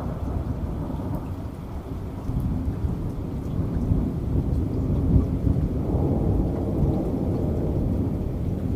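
Thunder rumbling over steady rain, the low rumble swelling about two seconds in and staying strong, with faint raindrop ticks above it.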